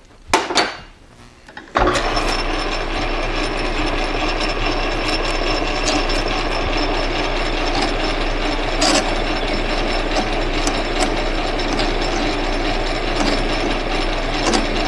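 A couple of clicks, then an Atlas metal lathe starts about two seconds in and runs steadily with its gear drive noise and motor hum, while a parting tool is fed into a spinning 3/8-inch brass rod to cut off a thin disc.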